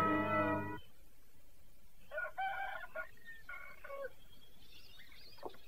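A music sting cuts off about a second in. After a quiet pause a rooster crows, the call broken into two parts, followed by faint high bird chirps near the end.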